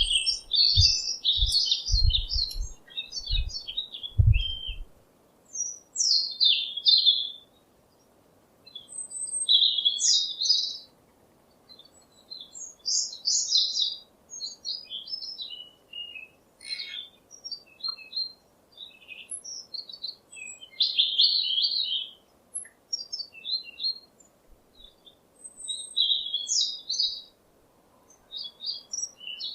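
Small songbirds chirping and twittering in quick, high phrases a second or two long, separated by short pauses. A few low thumps come in the first few seconds.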